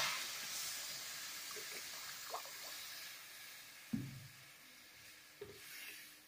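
Water poured into hot ghee-roasted semolina in a kadai hisses loudly as it hits the pan, the hiss dying away over the next few seconds as the water takes up the heat. A wooden spatula stirs the mix, knocking against the pan about four seconds in.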